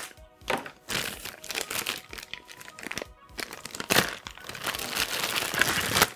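Clear plastic packaging bag crinkling and rustling as a power brick and its cord are pulled out of it, with a louder burst about four seconds in.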